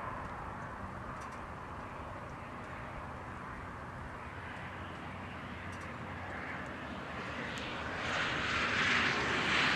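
Steady low outdoor rumble, then a car approaching on the road, its tyre and road noise swelling steadily louder over the last couple of seconds.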